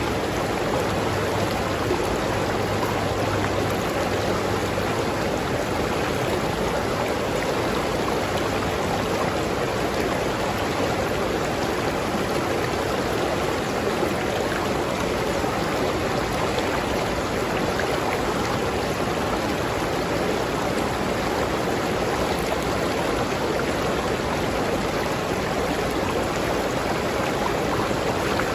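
River stream flowing steadily over rocks, a continuous rushing and babbling of water.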